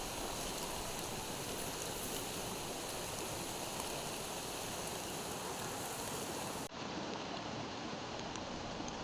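River water rushing steadily, an even wash of noise, briefly broken about seven seconds in.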